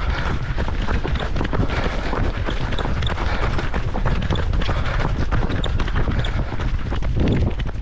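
Wind buffeting the microphone of a camera carried by a running runner, with the runner's footfalls on wet asphalt.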